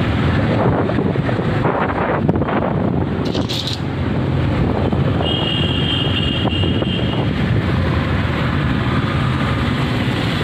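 Wind buffeting the phone's microphone while riding on a motorbike, a steady rushing noise over the bike's running engine. A thin high tone sounds for about two seconds midway.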